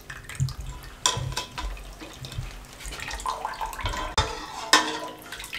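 Whey sloshing and dripping as soft milk curds are scooped from a steel pot into a wire-mesh strainer, with a few sharp clinks of the utensil against the pot and strainer, about a second in and twice near the end.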